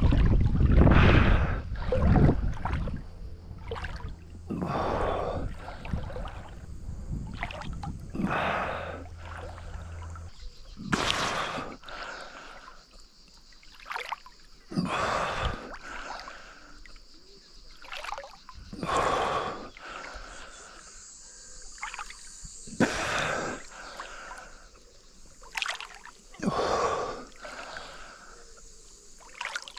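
Water splashing and swishing in a river with each swimming stroke, in surges every few seconds. Low wind rumble on the microphone during the first ten seconds.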